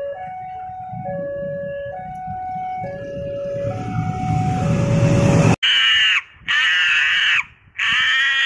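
Railway level-crossing warning alarm sounding its two alternating electronic tones, high and low, under a growing rumble of an approaching train. About halfway through it cuts off abruptly, and loud high-pitched calls follow, repeated about once a second.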